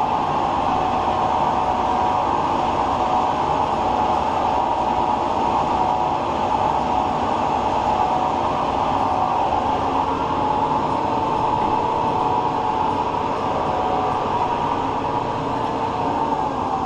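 Large 36-by-144-inch engine lathe running steadily at slow spindle speed under power feed, taking a carbide turning cut. Motor, belt drive and gearing make a loud, even mechanical drone.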